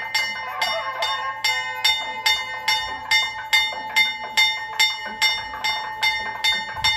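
Temple bell rung steadily for an arati, about two and a half strokes a second, each stroke ringing on into the next. A low thump comes right at the end.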